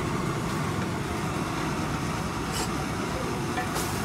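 Omelette frying in a blackened pan over a gas burner: a steady low rumble with a hiss over it. Two short scrapes of the spatula on the pan come about two and a half and four seconds in.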